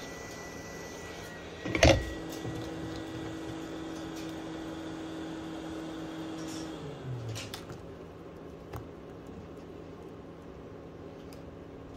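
Heat gun's fan motor running with a steady hum. A loud knock about two seconds in, then the pitch settles and winds down with a short falling tone around seven seconds, with a few small clicks after.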